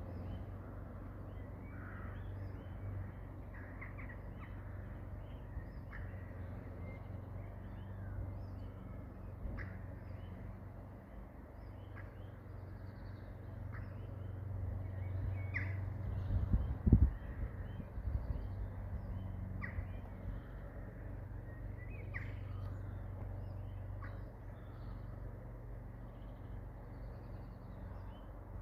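Birds calling and chirping in short scattered notes over a steady low rumble; the rumble swells and ends in a sharp low thump about seventeen seconds in.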